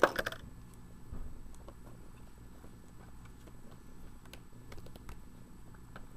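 Handwork with a craft knife on a rubber seal: a sharp crackling click at the start, then scattered faint ticks and clicks.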